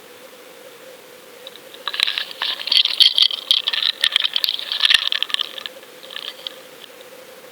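Dense rattling and clicking picked up by an underwater action camera on a pike lure rig, from about two seconds in until nearly six seconds, over a faint steady hum.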